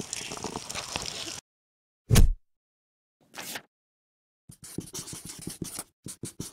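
A second of outdoor noise cuts off, then comes a loud, short thud and a brief swish. After that, a run of short, quick scratchy strokes: a felt-tip marker writing on paper.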